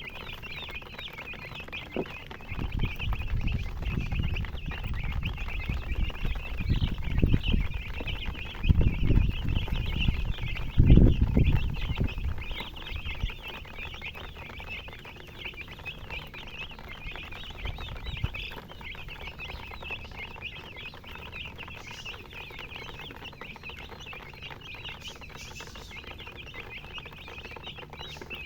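A group of baby chicks chirping continuously, many short high peeps overlapping. A loud low rumble comes and goes through the first half, strongest a little before the middle.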